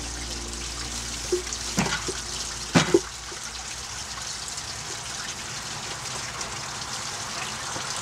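Wooden beam set down onto concrete cinder blocks: a few knocks between about one and three seconds in, the loudest a quick pair near three seconds, over a steady hiss.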